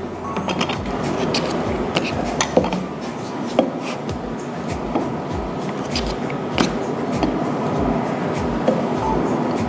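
Wooden rolling pin rolling pastry dough flat on a plastic mat, with a few irregular light knocks as the pin moves over the mat, over a steady background din.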